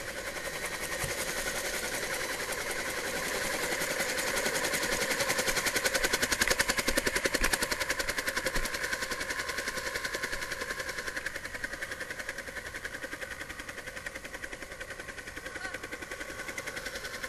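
Helicopter rotor chopping rapidly over the turbine's whine, heard close by. It swells to its loudest a few seconds in, then slowly fades.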